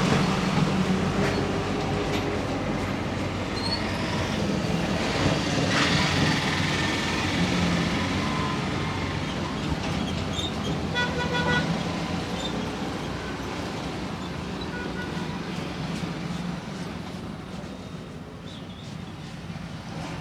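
Road traffic passing close by, with engines running. A vehicle horn toots briefly about halfway through, and the traffic noise fades a little toward the end.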